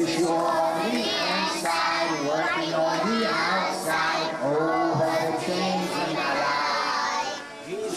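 Group of children singing a song together, with held notes and a brief break between phrases near the end.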